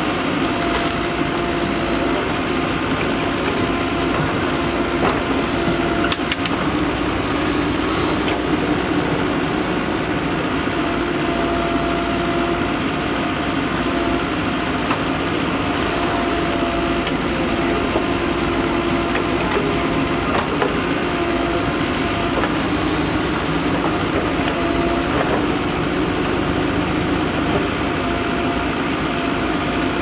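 Mahindra Earthmaster backhoe loader's diesel engine running steadily as the backhoe digs and swings soil, its hum shifting every few seconds as the hydraulics take load, with a few short knocks from the arm and bucket.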